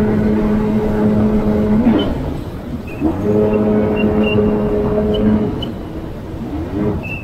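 Jet ski engine running at a steady pitch. It eases off about two seconds in and again a little past five seconds, then gives quick rising revs near the end.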